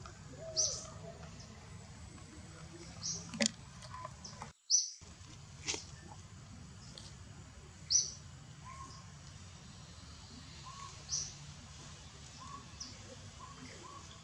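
Short, high-pitched animal chirps, about seven of them scattered through, over a steady low background hum.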